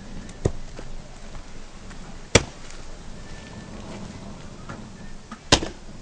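Three sharp cracks, about half a second in, about two and a half seconds in (the loudest) and near the end, with a few faint ticks between them over a low steady background.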